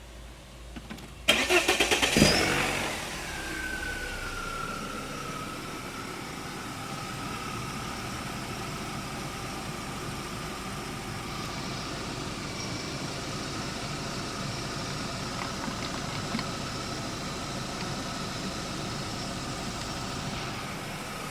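BMW E36 318i four-cylinder engine cranked on the starter about a second in, catching after roughly a second, then settling into a steady idle with a whine that drops slightly in pitch and holds. The engine is running with the cracked variable-intake diaphragm on its manifold sealed shut and disconnected.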